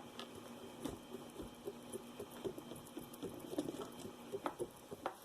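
Copper bracelet being rubbed and polished by hand: a run of faint, irregular small ticks, scrapes and clinks.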